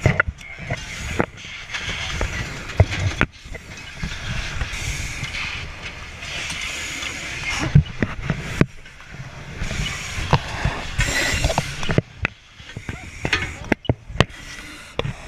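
Firefighting hose line being worked at a house fire: repeated hissing stretches a second or two long, with knocks and clunks of hose and gear throughout.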